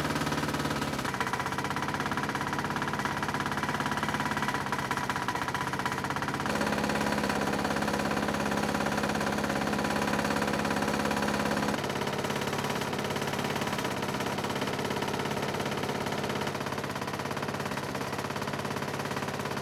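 Small single-cylinder lawnmower engine running steadily on WD-40 fuel, a rapid even firing note; its tone shifts abruptly a few times.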